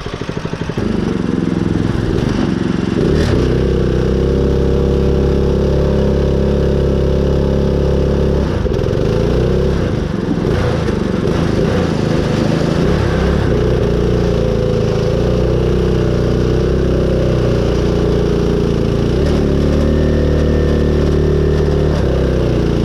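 The engine of a custom Craftsman riding-mower mud mower revs up about a second in, then runs hard at high throttle while driving. Its pitch wavers and sags for a few seconds in the middle and dips briefly near the end.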